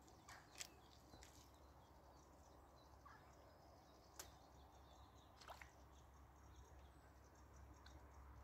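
Near silence: faint outdoor ambience with a few brief, faint clicks scattered through it.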